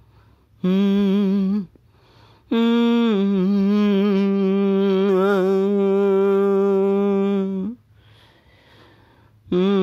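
A solo voice humming a slow melody in long wavering notes: a short note about half a second in, then one long held note of about five seconds that dips slightly in pitch, and another note beginning near the end.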